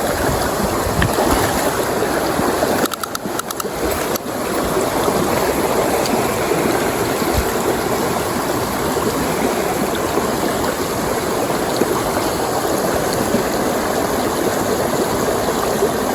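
Stream water rushing steadily over rocks at close range, with a brief dip and a few clicks about three seconds in.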